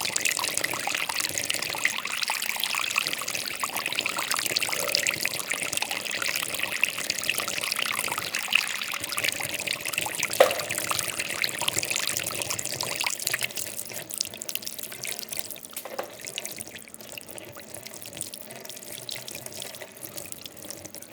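Water trickling and splashing steadily, with scattered drips and a short plink about halfway through. The flow grows quieter in the second half.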